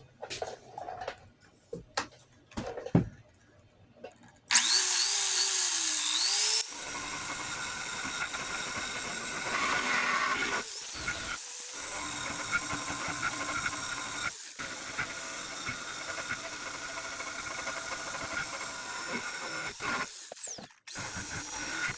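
A few light knocks, then a power sander starts about four seconds in, loud with a wavering high whine for about two seconds, before settling to a steady, quieter run as it sands the truck's body panel. It cuts out briefly near the end and starts again.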